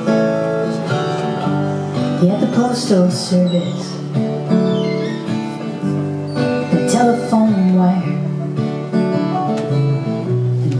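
Acoustic guitar music played live: strummed chords with a melody line gliding over them in short phrases.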